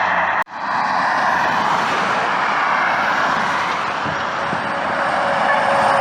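Highway traffic passing close by: steady tyre and engine noise, with a slowly falling tone near the end as a vehicle goes past. The sound cuts out for an instant about half a second in.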